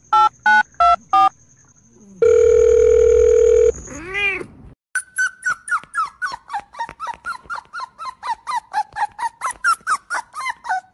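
Telephone-keypad-style beeps, about three a second, then a steady dial-tone-like hum for about a second and a half. From about five seconds in, a recording of a crying puppy plays: a rapid string of short high whimpers, several a second, each falling in pitch.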